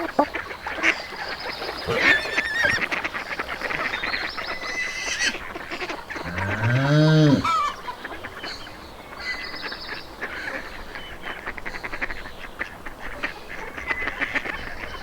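A flock of geese and ducks honking and quacking, many short calls overlapping. About six seconds in, a single long low call rises and falls in pitch over a second and a half, louder than the flock.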